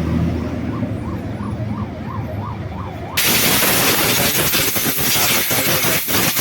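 A siren wails in the background, its pitch rising and falling about twice a second. About three seconds in, a loud harsh hiss starts suddenly as the motorcycle's brake shoes are cleaned.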